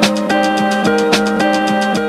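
Background music: held chords that change every half second or so over a steady beat, with fast ticking on top.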